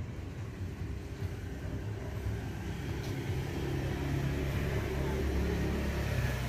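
A steady low mechanical rumble, like a vehicle engine, swelling slightly in the second half.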